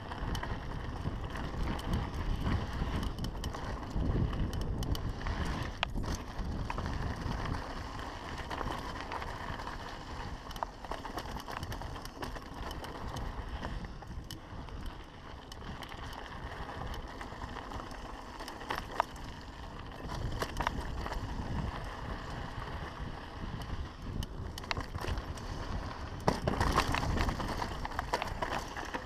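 Mountain bike rolling down a dirt singletrack: steady tyre noise on loose dirt and gravel, with rattling clicks and knocks from the bike over bumps. It is loudest around four seconds in and again near the end.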